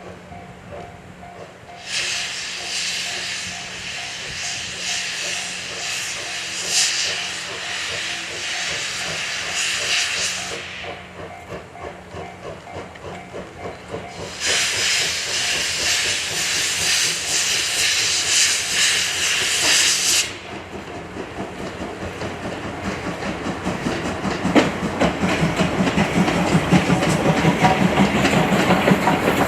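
Steam locomotive D51 200 venting steam in two long hisses of about eight and six seconds. Then its exhaust beats start up as a quick rhythmic chuffing that grows louder toward the end.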